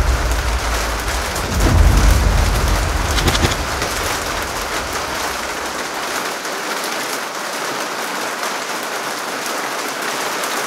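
Rainstorm sound effect: a steady rain hiss with rolls of thunder in the first few seconds, the low rumble dying away about six seconds in and leaving only the rain.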